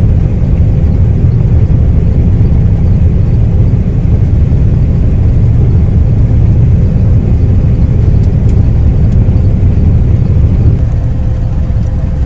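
John Deere combine harvester running steadily while harvesting soybeans, a loud, even, deep rumble.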